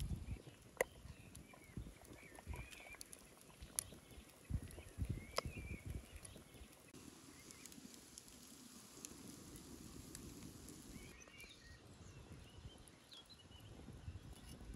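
A few sharp clinks and soft knocks of glass compote jars being handled; the loudest clink comes about a second in. Small birds chirp on and off. For a few seconds in the middle a soft hiss rises from the pot of hot water steaming around the jars.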